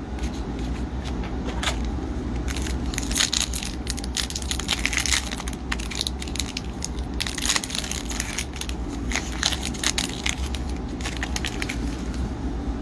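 Foil wrapper of an NHL Series 1 hockey card pack crinkling and tearing as it is opened, in dense irregular crackles.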